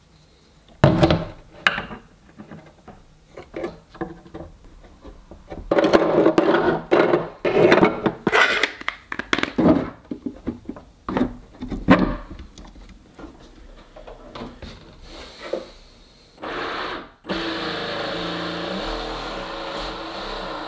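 Irregular clacks and knocks of plastic and metal parts being handled and fitted into a 3D-printed boat hull. Near the end a cordless drill starts and runs steadily.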